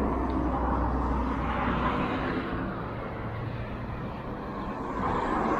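Road traffic: cars passing on an asphalt road, their tyre and engine noise swelling about two seconds in and again near the end.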